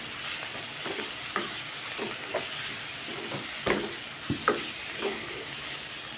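Wooden spatula stirring keema with freshly added tomatoes and green chillies in a hot aluminium karahi: a steady frying sizzle under irregular knocks and scrapes of the spatula against the pan, about one or two a second, two of them sharper around the middle.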